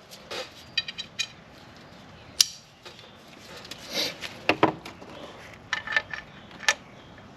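Metal hand tools and sockets clinking and clanking as they are handled and tried on the job, in scattered sharp knocks, a few with a brief metallic ring.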